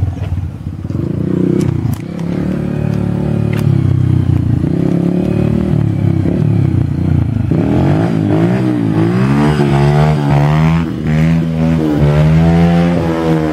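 Small dirt bike engine running under a rider, the engine pitch rising and falling again and again in the second half as it revs and shifts.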